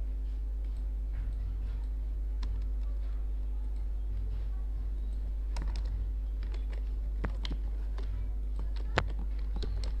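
Computer keyboard keystrokes, sparse at first and coming more often from about halfway, with one sharper click near the end, over a steady low hum.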